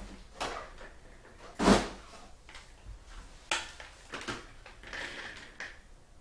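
Handling noises on a desk: a series of short knocks and rustles, with one louder thump about a second and a half in.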